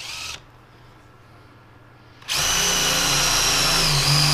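Cordless drill drilling holes in a digital readout's metal scale guard: a short burst that stops just after the start, then after about two seconds a loud, steady run whose whine dips briefly in pitch.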